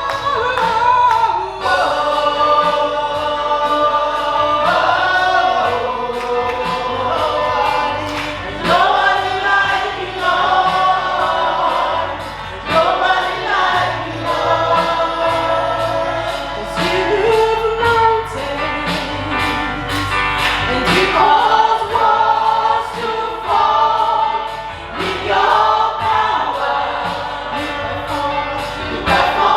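Gospel choir singing a worship song over instrumental accompaniment with a steady beat.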